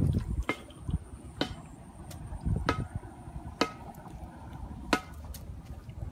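Footsteps on a dry dirt path: a sharp click with a brief ring about once a second, five in all, over low rustling and handling rumble.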